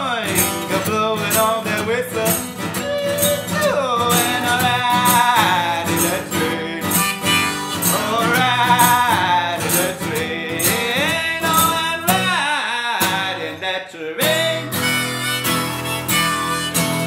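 Harmonica playing a melody with bending notes over strummed acoustic guitar, both played by one musician with the harmonica in a neck rack.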